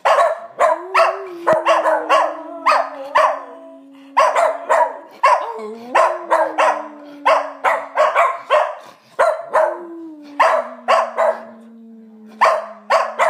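Miniature schnauzers barking and howling: rapid sharp barks, about two a second, over three long howls that each start higher and sag slightly in pitch.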